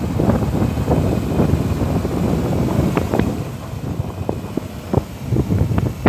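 Wind buffeting a microphone held out of a moving car's window, over the rumble of its tyres on a dirt road. The rumble eases a little about halfway through, and there are a few sharp ticks.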